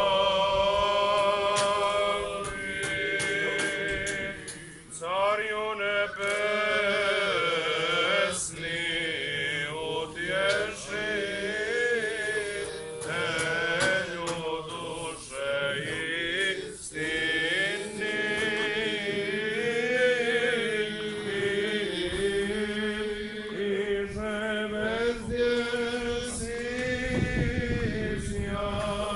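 A group of Orthodox priests chanting a liturgical hymn together in male voices, with a steady low drone underneath, as part of the service blessing the church bells.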